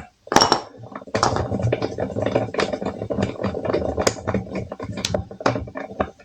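Ratchet wrench clicking in quick repeated strokes, undoing the small 8 mm bolt that holds a motorcycle's rear brake fluid reservoir; one sharp click just after the start, then a steady run of rapid clicks.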